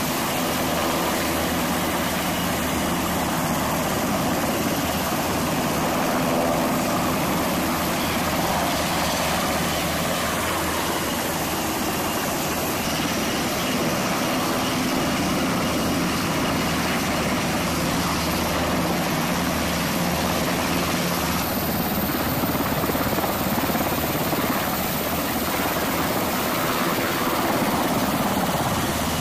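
Navy MH-60S Seahawk helicopters running on the ramp, one lifting off and flying past low: a steady rotor and turbine noise with a pulsing low beat from the rotor blades.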